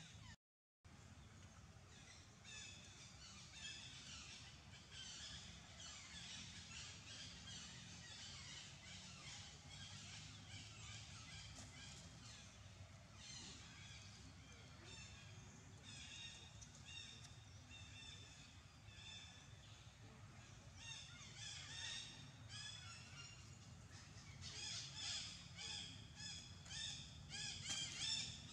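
Faint chorus of animal calls: many short, high chirps in quick runs, growing denser and louder near the end, over a low steady background hum. The sound cuts out briefly just after the start.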